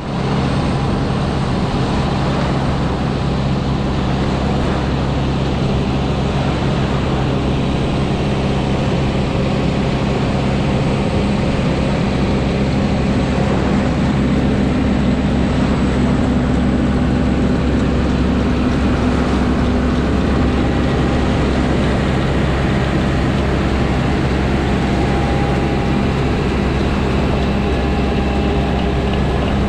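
John Deere 6430 tractor's six-cylinder diesel engine running at a steady speed while it tows a beach-cleaning machine, mixed with the mechanical noise of the cleaner's sieve conveyor working through the sand. The sound grows somewhat louder in the middle as the machine comes close.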